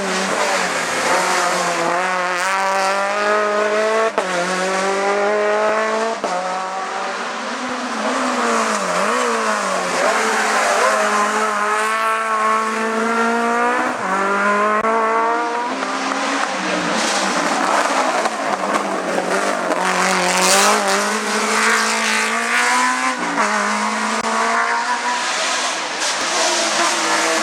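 Race car engine revving hard under load, its pitch climbing and then dropping sharply again and again as it shifts through the gears on a hillclimb.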